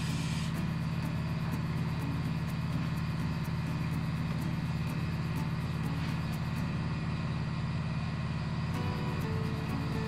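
Steady low hum of a tyre changer's electric turntable motor running, with faint regular ticking over it.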